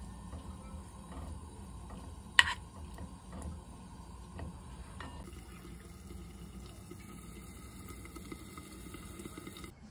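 Corn kernels frying in a nonstick pan with a steady sizzle while a wooden spatula stirs them, with a sharp clack of the spatula against the pan about two and a half seconds in. From about five seconds in the sizzle goes on under a lid.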